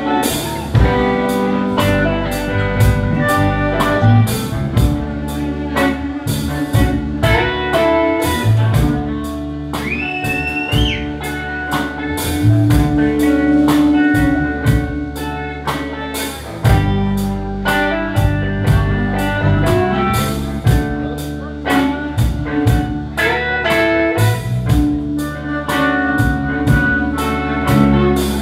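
Live blues band playing an instrumental passage: an amplified harmonica and a hollow-body electric guitar over bass guitar and a drum kit. About ten seconds in, one note bends upward.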